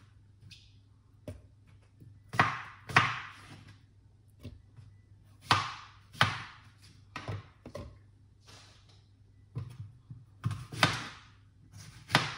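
Chunks of apple dropped one after another into a plastic blender cup on top of orange pieces, each landing with a thunk followed by a brief rattle, several times, often in quick pairs.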